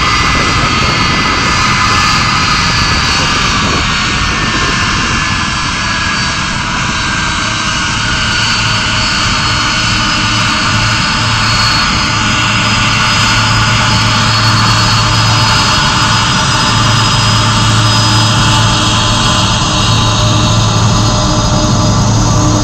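Boeing 747-400 taxiing past with its four Pratt & Whitney PW4056 turbofans running at taxi power: a steady loud jet roar and whine. The whine eases slightly lower in pitch over the first half, and a low steady hum comes in about a third of the way through.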